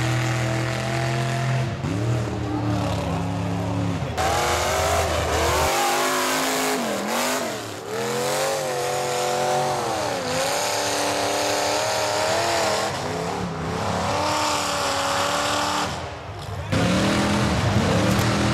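Mud-bog trucks' engines revving hard as their tires churn through deep mud, the pitch climbing and falling again and again. The sound changes abruptly a few times as one run gives way to another.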